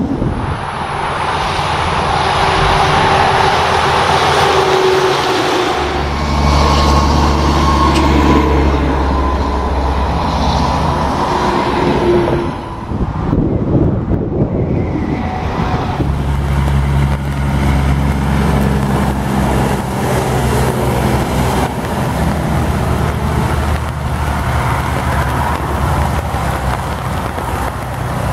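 Tractor-trailer trucks passing on a highway: diesel engines droning steadily over tyre and traffic noise. The sound breaks off briefly about halfway through, and then a second truck, a Freightliner Cascadia, draws near with its engine drone.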